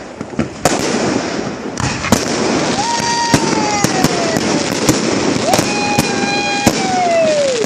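Fireworks going off: a rapid series of sharp bangs and pops over a steady crackle. Two long whistles also sound, each holding its pitch and then sliding down, one about three seconds in and one near the end.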